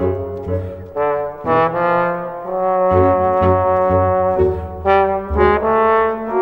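Background music: a melody of held notes over a pulsing bass line.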